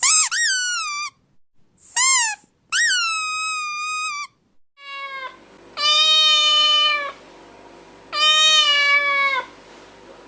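Cat meowing: three short, high mews that bend up and down in pitch, then two longer meows of about a second each.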